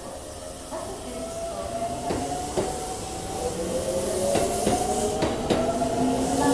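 Keikyu 600 series electric train moving past, its motors whining in several tones that slowly rise in pitch as it gathers speed. The wheels click over the rail joints, faster toward the end, over a steady hiss.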